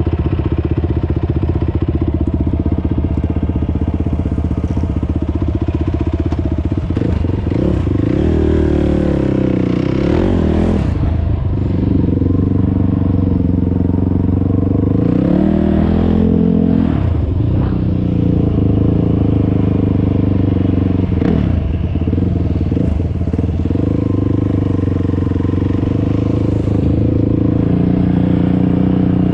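ATV engine running under way on a ride, its revs rising and falling several times as the throttle opens and closes.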